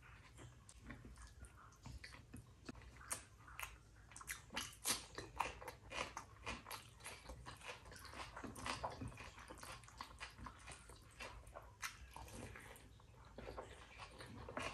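A person chewing and eating rice with curry close to the microphone: wet mouth smacks and irregular short clicks, several a second.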